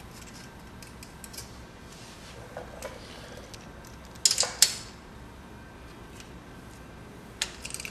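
Sharp metallic clinks of a socket wrench on the valve tappet adjuster lock nut of a Honda 250 single-cylinder head, two loud ones about four seconds in with a few fainter taps before and after, as the valve clearance that checked too tight is reset.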